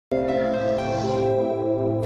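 Channel intro music: sustained chords that start suddenly just after the beginning and hold steady.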